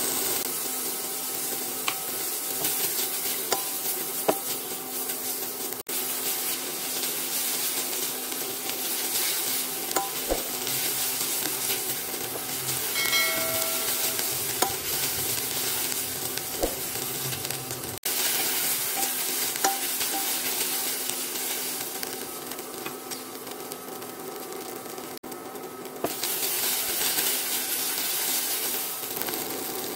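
Diced onion, red bell pepper and garlic sizzling in hot oil in a pan, with a spatula stirring through them and now and then clicking against the pan.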